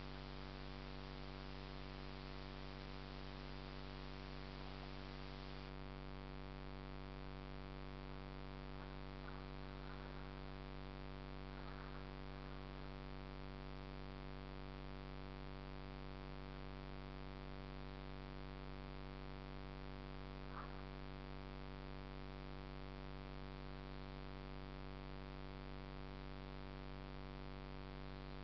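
Steady electrical hum with a buzzy stack of even overtones over a background hiss; the hiss softens about six seconds in. A few faint short chirps come through, around a third of the way in and again about two-thirds in.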